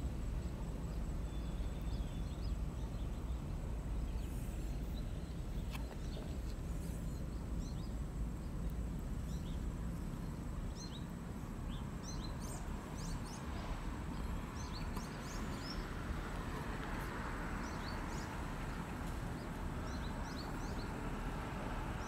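Outdoor ambience: a steady low rumble with small birds chirping in short high notes, scattered at first and more frequent in the second half.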